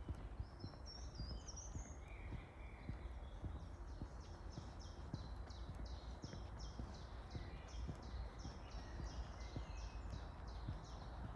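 Footsteps of someone walking, as a string of soft knocks, with a bird singing over them: a short warble about half a second in, then a long run of quick, repeated high notes. A low steady rumble runs underneath.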